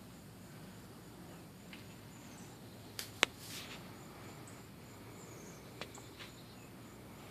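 Quiet background with faint, high, repeated chirping and a few sharp clicks, the loudest about three seconds in and two smaller ones near the six-second mark.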